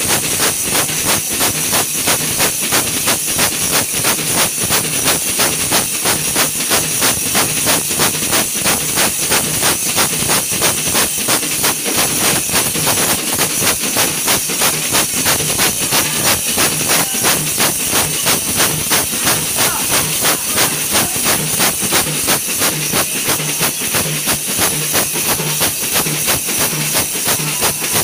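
A group of hand-beaten frame drums played together in a fast, steady rhythm of about five beats a second, with brass cymbals clashing and ringing over them without a break.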